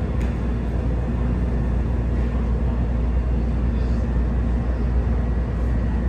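Chicago 'L' Orange Line train running, a steady low rumble of wheels and motors on the elevated track.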